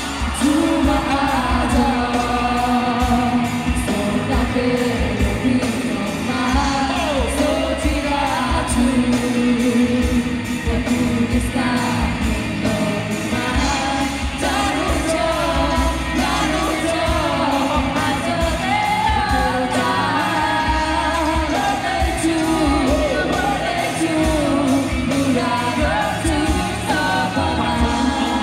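Live band playing a song with a steady beat: several vocalists singing into microphones over drum kit, electric bass and keyboards.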